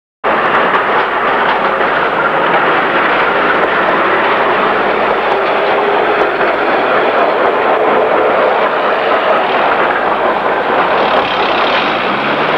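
Melbourne W2-class tram running along its rails close by: a loud, steady rumble of wheels on track that starts abruptly a fraction of a second in.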